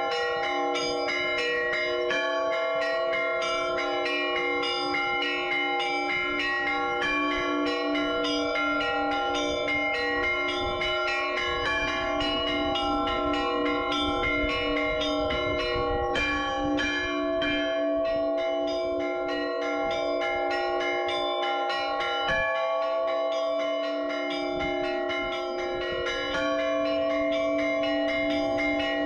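Orthodox church bells ringing in a continuous peal, several bells of different pitch struck in quick, repeated strokes that overlap into a steady wash of ringing tones.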